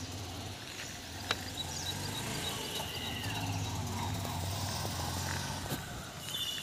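Motorcycle engine running steadily at low revs, a low even hum. Birds chirp over it with a quick run of high notes and a couple of short gliding calls.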